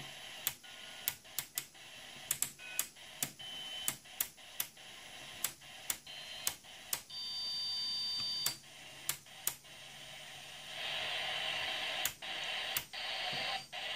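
President Grant II CB radio receiving on upper sideband: steady static from its speaker, with a short click at each step as the channel knob is turned through the channels. A few brief steady whistles come through, and the noise rises about eleven seconds in.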